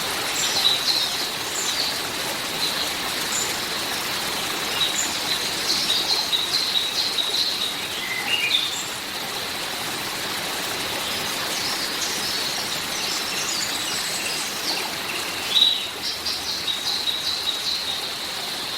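Steady hiss of rain or running water with small birds chirping over it, the chirps coming in quick bursts, busiest in the first half and again near the end.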